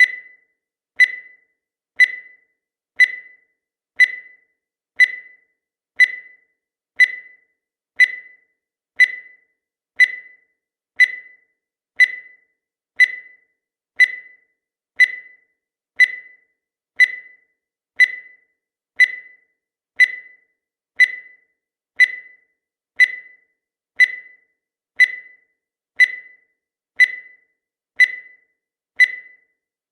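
Countdown timer sound effect: a short, high electronic beep at the same pitch once every second, each fading quickly.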